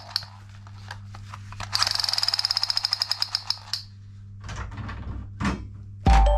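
A battery-powered sound-and-light toy gun's electronic machine-gun sound effect: a fast, even rattle of buzzing high-pitched pulses lasting about two seconds. It is followed by plastic toy guns knocking together in the box. Just before the end, a much louder electronic jingle from another toy gun starts.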